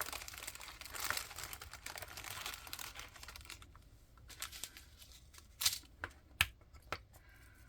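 Small plastic baggie crinkling and rustling as it is handled and emptied, then a handful of sharp plastic clicks, like small storage container lids being snapped and handled.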